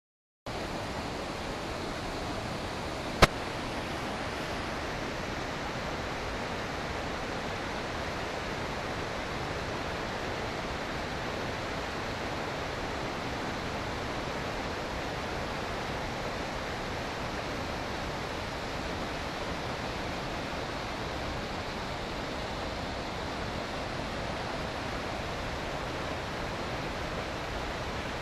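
Waterfall rushing steadily, an unbroken even noise of falling water, with a single sharp click about three seconds in.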